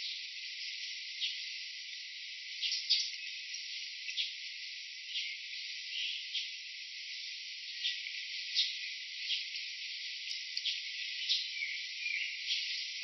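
Steady insect drone, with short clicks or rattles scattered irregularly through it and a brief rising chirp near the end.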